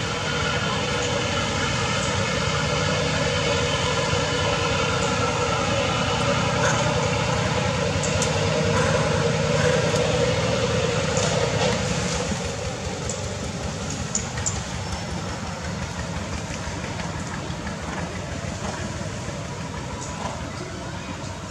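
Steady engine-like drone with several fixed pitches, which drops in level about twelve seconds in, with a few faint clicks over it.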